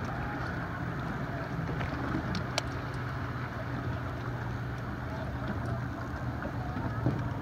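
Boat motor running steadily at slow trolling speed, a low even hum under wind and water noise. A couple of sharp clicks come about two and a half seconds in.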